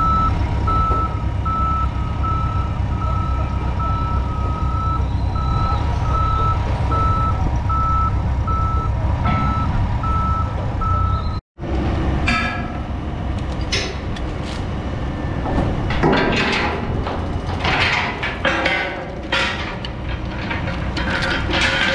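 Telehandler's backup alarm beeping about one and a half times a second over its diesel engine running. About 11 seconds in the sound cuts off, and steel rigging chains clink and knock against a steel conveyor leg as they are hooked on.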